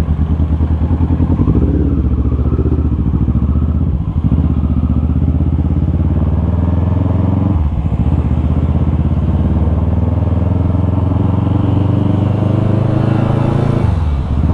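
Kawasaki ER-6n's 649 cc parallel-twin engine running as the bike is ridden along at low speed. Its steady note dips briefly about four seconds in, again near eight seconds, and near the end.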